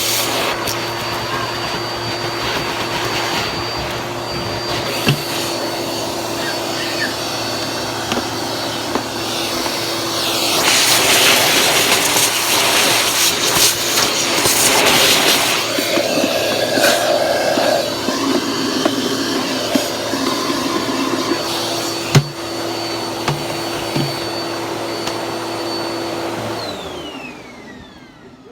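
Vacuum cleaner running steadily with a motor whine, growing louder and rougher for several seconds in the middle, with scattered clicks. It is switched off near the end, the motor winding down.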